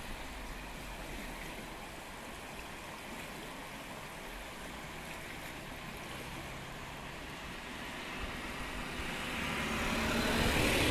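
Swollen river in flood after rain and snowmelt, its fast brown water rushing steadily. About eight seconds in, a louder rushing swell builds and peaks near the end.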